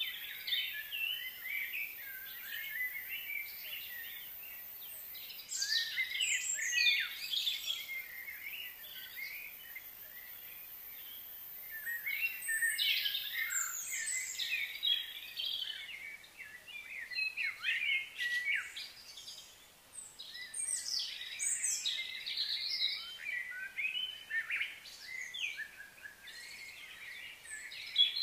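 Several small birds chirping and twittering at once, in bursts of quick high notes separated by short lulls.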